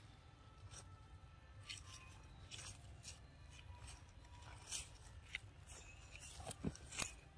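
Faint, scattered crackles and clicks of dry leaf litter under a macaque moving over it, with the sharpest click a little before the end.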